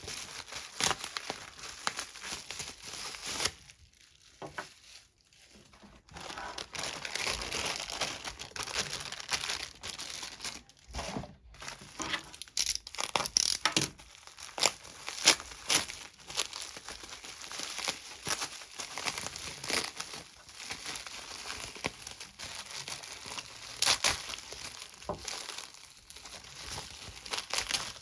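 Packaging being crinkled and torn open by hand as a parcel is unwrapped, in irregular crackling bursts with a short lull about four seconds in.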